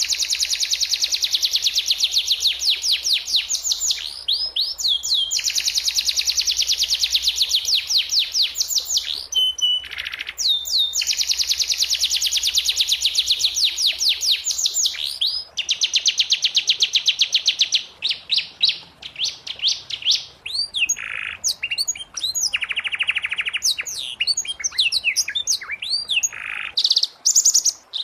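Domestic canary singing. In the first half it sings long, very fast trills of high repeated notes, each lasting three to four seconds, with short breaks between them. From about the middle it switches to shorter, varied phrases and single chirps.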